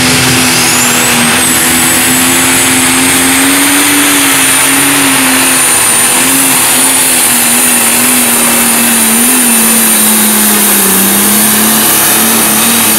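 Pro stock pulling tractor's turbocharged diesel engine held at full throttle under load as it drags a weight-transfer sled down the track. It is a loud, steady drone at a near-constant pitch, with a high whistle that rises over the first second or so and then holds.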